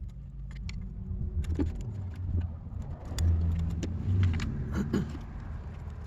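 A fluctuating low rumble with scattered small clicks and taps from plastic HVAC control panel parts being handled and pressed into place.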